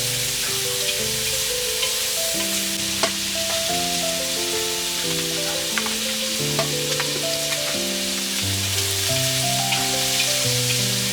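Food sizzling in a hot pan, a steady hiss with scattered pops and crackles, under a slow instrumental melody of held notes.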